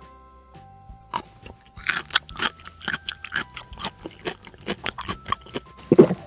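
Crunchy chewing and biting: a fast, irregular run of crunches, with one louder, lower bite just before the end, over soft background music.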